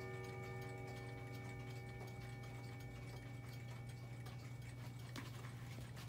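Chime rods of a Howard Miller 613-303 wall/mantle clock ringing out after a strike, several tones fading over the first second or two, one lingering longer. Clock movements tick steadily over a steady low hum.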